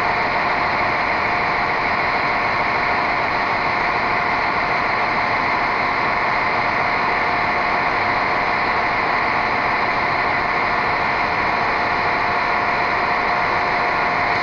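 Srbija Voz class 711 Russian-built diesel multiple unit idling at the platform: a steady engine drone with a thin steady whine, unchanging throughout.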